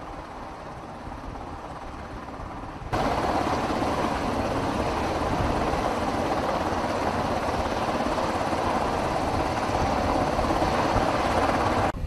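Helicopter rotor and engine noise, steady and fairly faint for the first three seconds, then much louder until it cuts off abruptly near the end.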